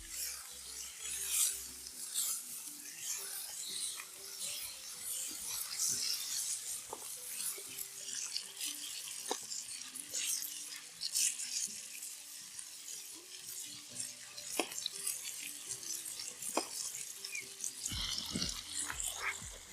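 Food sizzling and crackling as it cooks over a campfire, with many sharp little pops through a steady hiss. Soft music plays faintly underneath.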